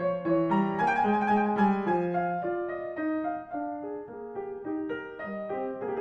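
Background piano music: a calm melody of held notes.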